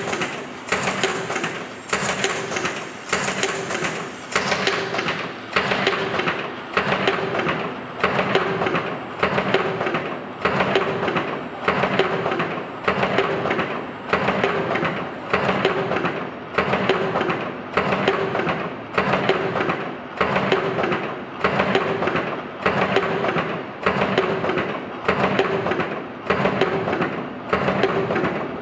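NBL-4800F automatic flat face mask machine running, its mechanisms clattering and clicking in a regular cycle about every one and a half seconds as it turns out masks.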